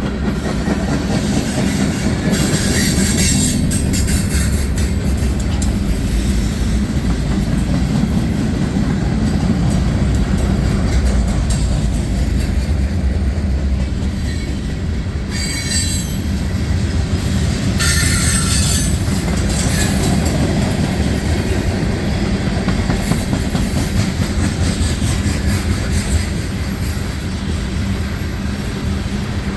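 CN freight train rolling past with a steady, loud rumble of wheels on rail, broken three times by short, high-pitched wheel squeals.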